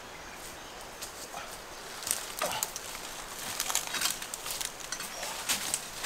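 Footsteps crunching through dry fallen leaves and twigs on the forest floor: irregular crackles that start about two seconds in and grow busier toward the end.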